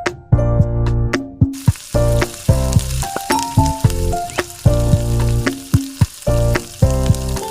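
Samosas deep-frying in hot oil: a steady sizzle that comes in about one and a half seconds in. Under it plays background music of keyboard notes in a regular rhythm.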